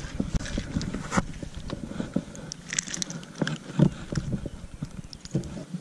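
Irregular small clicks, taps and knocks from handling a baitcasting rod and reel while a small smallmouth bass is brought to the boat and lifted out by hand.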